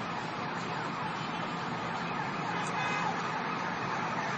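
Fire apparatus sirens wailing in sweeping rises over steady city traffic noise, growing louder near the end.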